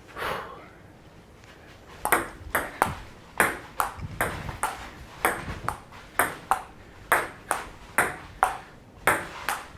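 Table tennis rally: the ball clicking off the paddles and the table back and forth, about two to three hits a second, starting about two seconds in.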